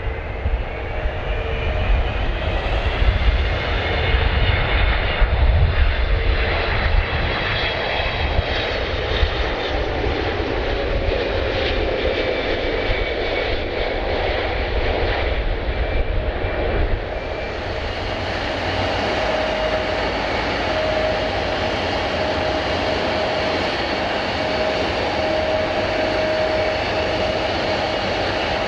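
Jet airliner engines running loudly, a deep rumble under high fan whine tones that slowly slide in pitch. About two-thirds of the way through, the rumble suddenly drops away, leaving a steadier hum with a high whine.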